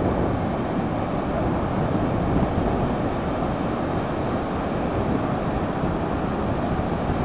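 Ocean surf breaking on a sandy beach in a steady wash, with wind buffeting the microphone.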